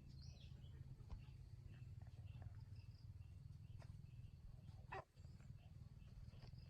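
Near silence: a faint steady low hum with scattered small high chirps, and one brief animal call about five seconds in.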